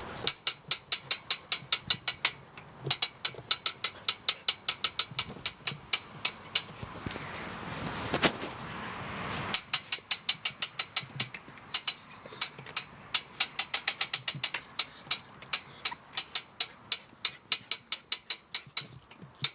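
Ratchet and pawl of an old hand-cranked winch clicking rapidly and evenly, several clicks a second, as the handle is turned. Midway the clicking stops for a few seconds, replaced by a hiss, then starts again.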